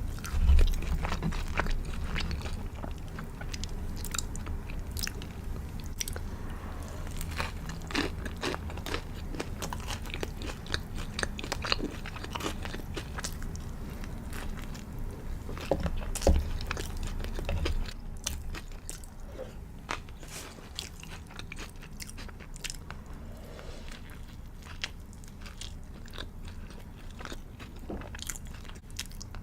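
A person biting and chewing a crispy fried chicken burger, with many short crunches and crackles of the breaded coating, and louder bites about half a second in and about 16 seconds in.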